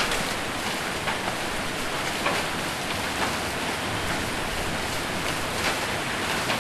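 Heavy rain with hail drumming on a roof: a steady hiss with scattered sharper hits of hailstones, one every second or so.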